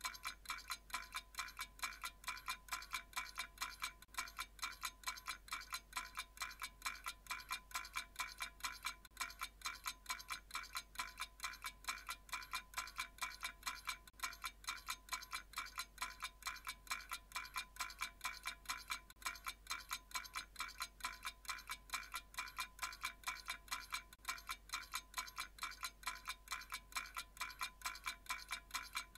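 Soft background music: a steady, even pulse of chime-like notes repeating throughout, with no voice over it.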